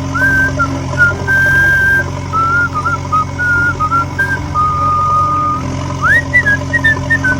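A whistled melody, likely a background music track: one clear tune that holds notes and slides between them, with a swoop up about six seconds in, over a steady low hum.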